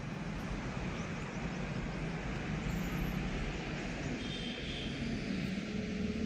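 Steady low rumble of vehicle noise, with no distinct knocks or rhythm.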